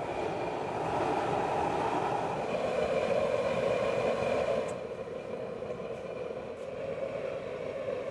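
Homemade waste-oil burner stove burning with a steady rushing flame noise and a faint steady high whine above it. The noise drops a little about halfway through.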